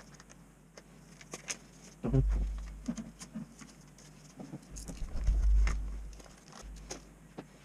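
Scattered clicks and light taps of small objects being handled, with two stretches of deep rumble, like the microphone being bumped or brushed, about two seconds in and again near the middle.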